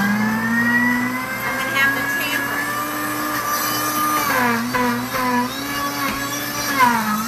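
Pampered Chef Deluxe Cooking Blender motor running on its smoothie program, churning a heavy load of frozen fruit. Its whine rises in pitch over the first second, holds steady, then dips and recovers several times from about four seconds in as the load shifts around the blades.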